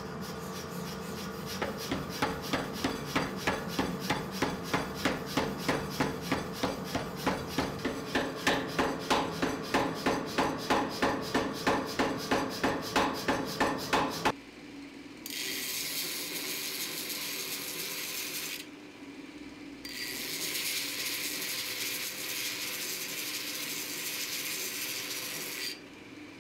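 Power hammer striking a hot pattern-welded Damascus billet, at about three even blows a second over a steady machine drone, the blows starting a second or two in and stopping about halfway through. Then a belt grinder grinding the steel bar, a steady hiss that breaks off once for about a second.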